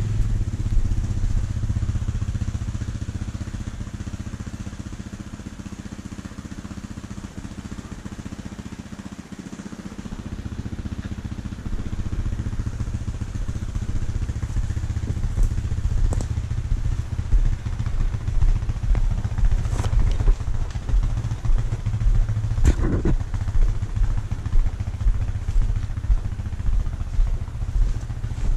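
Engine of a small off-road vehicle running as it is ridden along, with an uneven, pulsing drone. It eases off a few seconds in and picks up again around the middle, with a few sharp clattering knocks in the second half.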